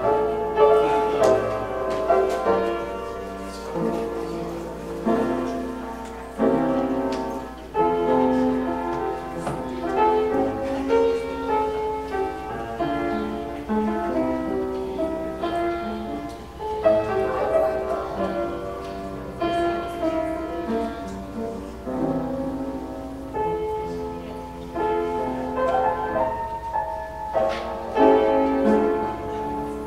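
A keyboard instrument, likely a piano, playing slow instrumental music with held chords that change every second or so.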